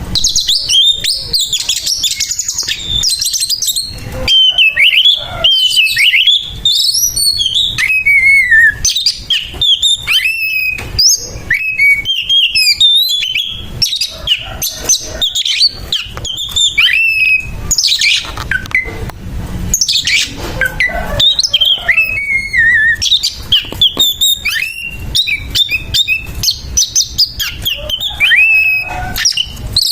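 Oriental magpie-robin singing an aggressive fighting song. It runs as a nonstop stream of quick whistled phrases that slide up and down, mixed with harsh, rasping notes.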